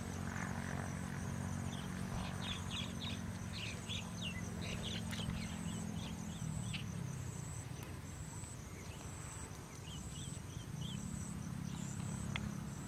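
Outdoor rural ambience: insects chirring steadily at a high pitch, with a run of short bird chirps in the first half. Under it is a low steady hum that fades out about halfway through and comes back near the end.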